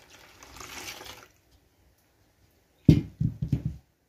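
Water pouring from a glass jug onto juá bark shavings in a stainless steel bowl, stopping just over a second in; about three seconds in comes a quick run of loud dull thumps.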